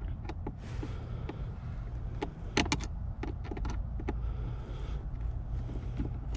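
Phillips screwdriver backing screws out of a car's plastic center console trim: scattered sharp clicks, several in a quick cluster about halfway through, with short scraping sounds, over a steady low rumble.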